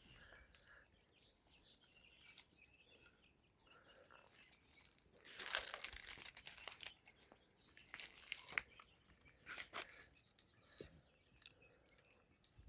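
Faint, scattered crunching and crackling, in a few short clusters about halfway through and again a few seconds later.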